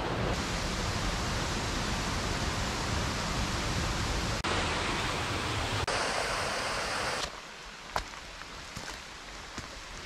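Steady rushing of the gorge's stream, which cuts off abruptly about seven seconds in. What follows is quieter, with a few light footsteps.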